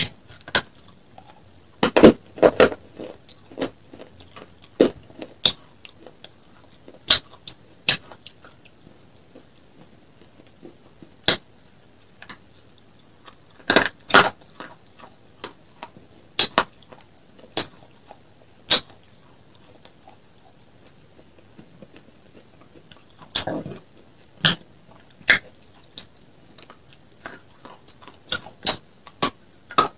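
Close-miked crisp crunches as a person bites and chews pieces of a hard, brittle grey slab. The cracks come irregularly, single or in short clusters a few seconds apart, with the loudest bites about 2 seconds in, around 14 seconds and around 23 seconds.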